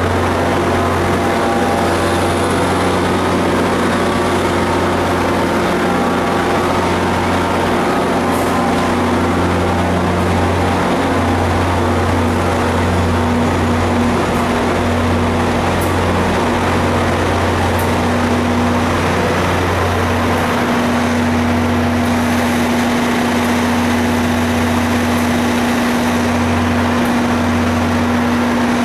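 Diesel train locomotives idling at the platforms: a loud, steady engine drone with a constant hum above it that grows stronger about two-thirds of the way through.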